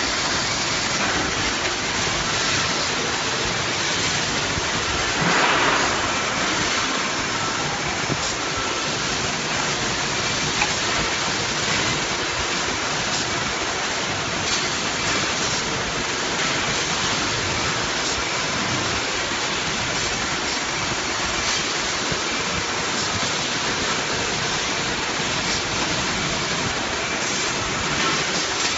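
Steady rushing hiss from glass-processing machinery, with a brief louder swell about five seconds in.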